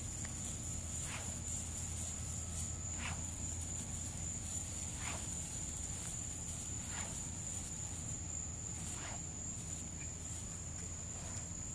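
Night insects trilling in one steady, high, unbroken tone over a low hum. A faint, short call repeats about every two seconds.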